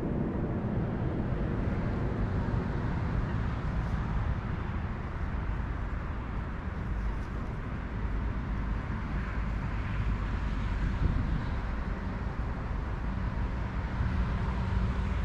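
Steady low rumble of distant road traffic, with no single passing event standing out. A low, steady engine drone comes in near the end.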